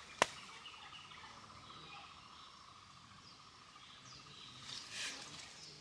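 Quiet outdoor ambience with a faint, steady high trill that stops about four and a half seconds in, a sharp click just after the start, and a soft rustle near the end.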